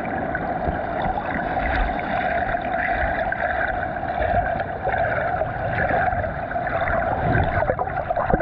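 Underwater sound picked up by a camera lying submerged on a sandy bottom: a steady, muffled rushing of water, with a few low bumps near the end.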